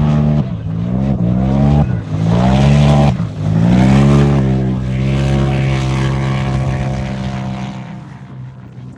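Turbocharged UTV engine at racing speed: its pitch climbs four times in quick succession, each climb cut off by a brief dip, then holds steady before fading near the end.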